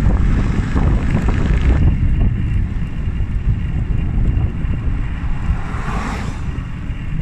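Heavy wind buffeting the microphone of a camera on a fast-moving bike, a loud, steady rumble. The higher hiss thins out about two seconds in, with a brief louder hiss about six seconds in.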